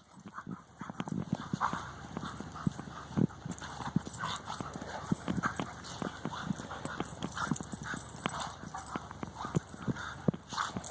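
Footsteps crunching in snow: a quick, irregular run of crunches throughout.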